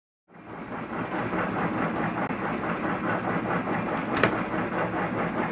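Vertical milling machine running, drilling a hole through a bronze block with a drill fed down on the quill: a steady mechanical clatter that comes in just after the start, with a sharp click about four seconds in.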